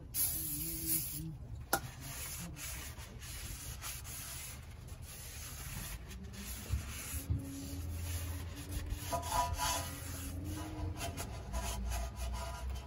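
A short hiss of aerosol cleaner sprayed onto a new brake rotor, cut off after under two seconds, then a cloth rubbing and wiping across the rotor's face.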